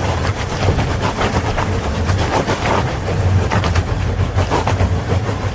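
Fiat Ducato camper van climbing a steep, washed-out dirt track: the engine hums steadily under load while the body and tyres clatter and knock irregularly over ruts and loose gravel, the wheels slipping for grip on the slope.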